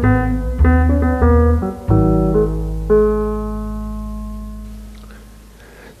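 Background music: keyboard chords changing about twice a second, then a final chord held and fading away over the last three seconds.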